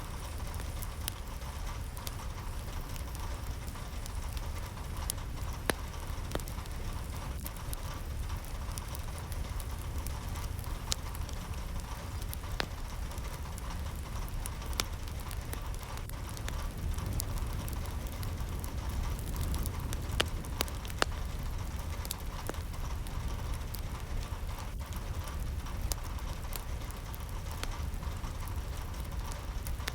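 Steady rain falling, with irregular sharp drops tapping on a hard surface.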